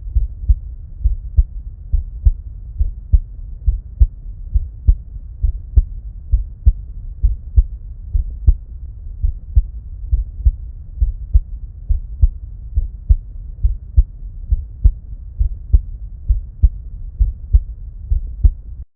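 Human heart sounds picked up through an Eko DUO digital stethoscope: a steady lub-dub, paired beats about seventy times a minute, with a low hum between them. The sound cuts off suddenly near the end.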